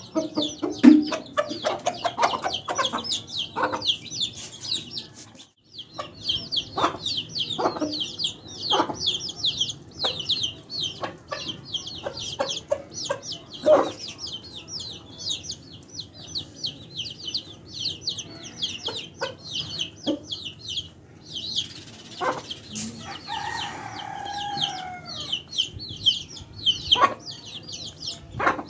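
Domestic chicks peeping rapidly and continuously, with adult chickens clucking now and then. There is a brief break about five seconds in, and a longer wavering call a little after twenty seconds.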